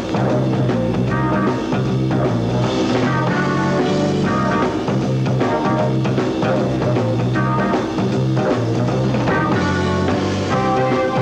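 Rock music with a steady beat, laid over the pictures as a soundtrack.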